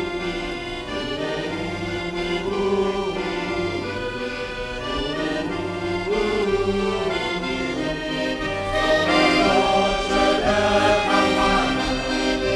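Accordion playing a traditional folk tune, a sustained melody over a repeated bass note, growing louder about nine seconds in.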